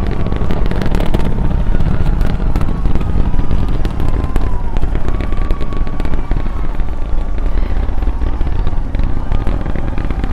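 Falcon Heavy's 27 Merlin 1D engines at full thrust during ascent, heard from a few miles away: a loud, continuous deep rumble laced with dense crackling pops.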